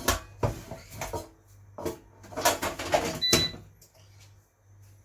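Air fryer basket being handled and pushed back into the air fryer: a string of plastic knocks and clatters, with a short high beep a little past three seconds in.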